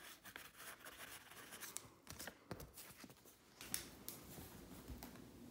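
Faint scratching of a pen writing on paper, with a few light ticks and taps.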